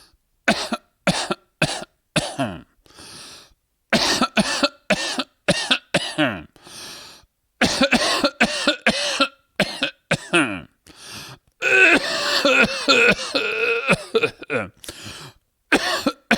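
A man coughing over and over in clusters of short, sharp coughs, with quieter breaths in some of the pauses. About twelve seconds in, the coughs run together into a longer, unbroken fit.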